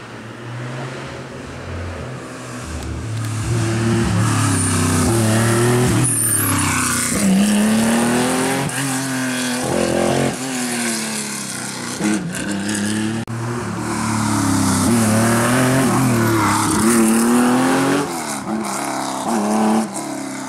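Historic rally car's engine driven hard at full throttle, its pitch climbing through the gears and dropping back again and again. It swells in over the first few seconds, then stays loud with short dips as the driver lifts off.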